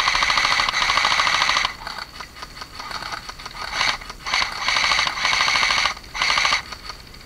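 Airsoft electric rifle, a JG G3, firing several full-auto bursts of BBs, each a fast, even rattle of shots. Two bursts come back to back at the start, a short one comes near the middle, and a longer one of about a second and a half is followed by a short final burst.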